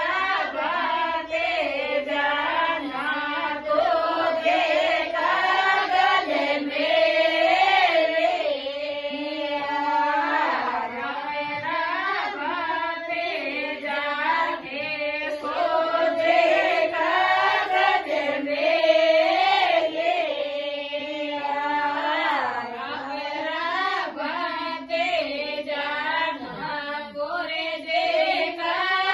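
A woman singing a Marwari devotional harjas in a continuous, ornamented melody, with long gliding notes in a fairly high voice.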